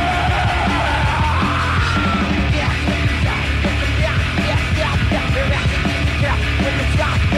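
Live death metal recording: distorted guitars, bass and drums playing at full tilt, with a yelled vocal. A high note slides upward over the first two seconds.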